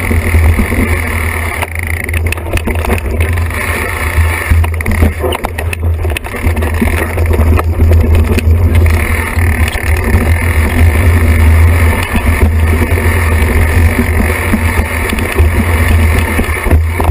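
Steady wind rumble on the microphone of a camera mounted on a mountain bike, with the bike rattling and knocking as it rolls down a dirt singletrack.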